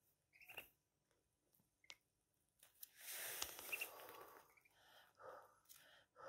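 A yellow duckling held in cupped hands gives a few faint, short peeps, about half a second in and again near two seconds. A soft hiss lasts about a second and a half from about three seconds in.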